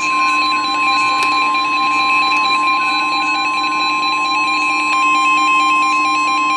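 NOAA Weather Radio 1050 Hz warning alarm tone, one steady high tone held throughout, played through a weather radio's speaker with fainter warbling tones under it. It signals that a warning, here a severe thunderstorm warning, is about to be broadcast.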